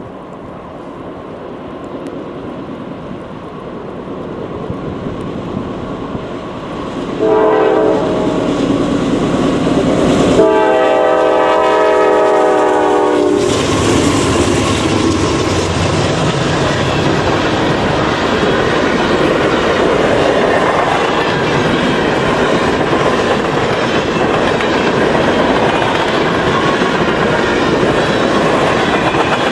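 Diesel freight train approaching and sounding its horn, several tones at once: a short blast about seven seconds in, then a longer one of about three seconds. Then the locomotives and cars pass close by with a loud, steady rumble.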